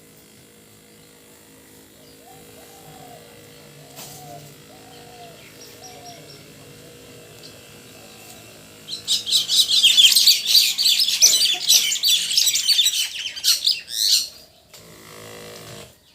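Birds calling: a run of soft, low, repeated calls, then, about nine seconds in, a burst of loud, rapid, high chirping that stops about five seconds later.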